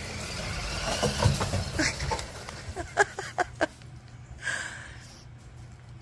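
Toy remote-control truck's small electric motor running as it drives across a wooden deck, followed by a quick cluster of short sharp clicks about three seconds in and a brief burst of noise a little later.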